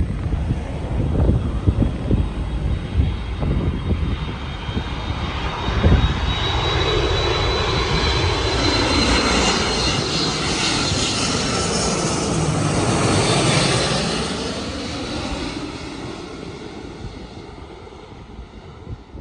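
Airliner on final approach passing low overhead: a high engine whine rises, the jet noise swells to its loudest about two-thirds of the way through, then fades away. Wind buffets the microphone in the first few seconds.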